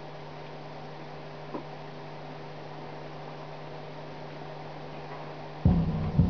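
Steady low electrical hum, like mains hum from an amplified speaker, with one faint click. About five and a half seconds in, bass-heavy music starts again through the Grundig subwoofer.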